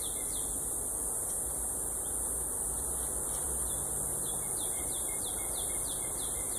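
Steady, high-pitched insect chorus with runs of short falling chirps, about three a second, over the low hum of honeybees milling over an open hive.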